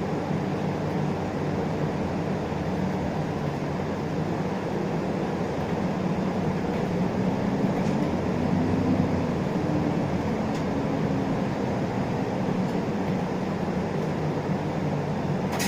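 Isuzu Erga LV290 city bus heard from inside the cabin while driving: a steady mix of diesel engine and road noise, with the engine note rising a little about halfway through.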